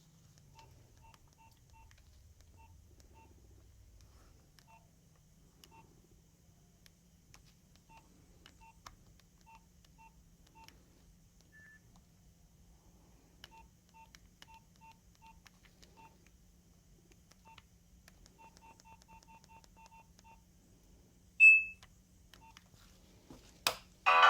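Nokia 2310 keypad tones: short, faint beeps at one pitch as keys are pressed, at irregular intervals and sometimes in quick runs. One louder, higher beep comes near the end.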